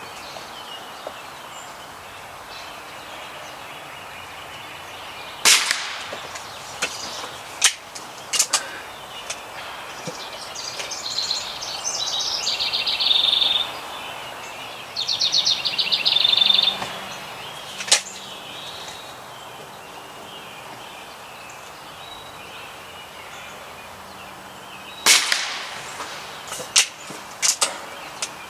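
Two shots from a .22 Gamo Bone Collector break-barrel air rifle: a sharp crack about five seconds in and another a few seconds before the end, each followed by a few lighter clicks. In between, a bird gives two rapid trills.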